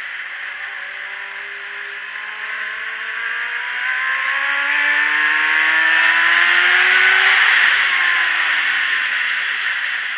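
Sport motorcycle engine heard from an onboard camera under heavy wind rush: the engine note climbs steadily for about five seconds as the bike accelerates on the track, then falls away about three-quarters of the way through as the throttle comes off.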